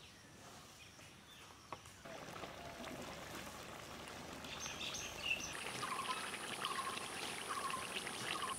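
Chicken curry bubbling and simmering in a black wok over a wood fire, a steady hiss with many small pops and crackles that starts about two seconds in. Birds chirp in the background in the second half.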